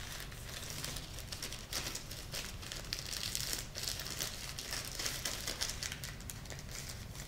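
Thin plastic packaging crinkling as hands handle in-ear headphones sealed in a clear plastic sleeve, a stream of small irregular crackles.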